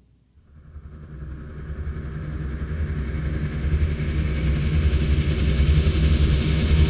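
A low rumbling drone with a hiss over it swells in from near silence about half a second in and keeps growing louder, a dark sound-design rumble in the film's soundtrack.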